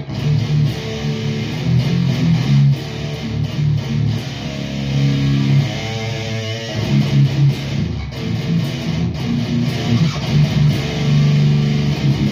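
High-gain electric guitar through a REVV G4 distortion pedal playing a chugging palm-muted riff with tight, heavy low end. About halfway through, the chugs break for a short higher-pitched phrase.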